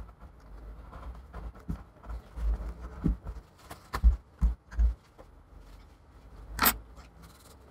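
Handling noises of hands working on an opened iMac's housing: rubbing and scraping with several dull knocks, and a short loud rustle near the end.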